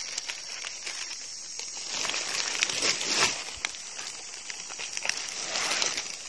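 Dry leaf litter crunching and rustling, with irregular crackles and louder swells about two seconds in and again near the end.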